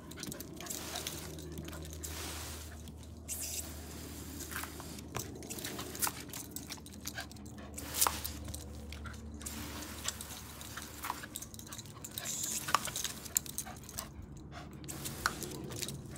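Wire fox terrier snapping and biting at the spray from a garden hose, giving irregular short snaps of its jaws over the hiss of the water.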